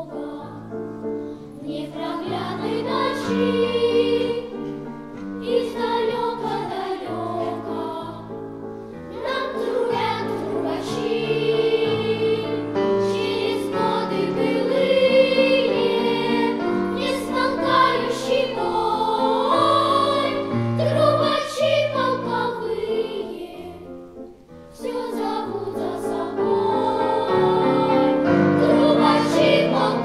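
Young girls' choir singing a song in Russian with piano accompaniment. About three-quarters of the way through, the sound drops away briefly, then comes back fuller.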